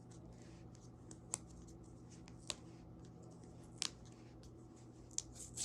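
Faint handling noises: sharp clicks and light rustling as hands work the paper wrap off a new Apple charging cable. There are half a dozen isolated ticks, a second or so apart, over a low steady hum.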